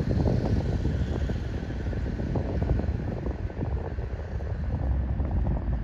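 Wind buffeting the microphone: a rough, uneven low rumble that flutters constantly.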